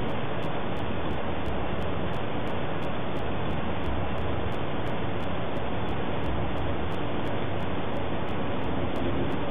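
Steady, unchanging rushing noise like static, with no rhythm, tone or sudden sounds.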